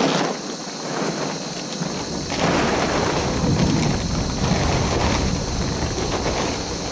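Plastic tarp crinkling and rustling as it is shaken out and pulled over, loudest through the middle, over a steady hiss of rain.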